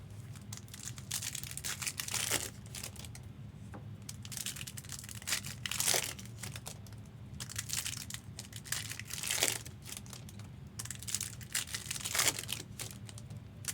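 Foil trading-card pack wrappers crinkling and tearing as packs are opened by hand, in irregular crackling bursts, the loudest coming about every three to four seconds.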